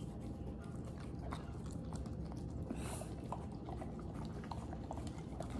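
A dog eating ice cream from a cup, with small wet licking and smacking clicks scattered throughout, over a steady low hum.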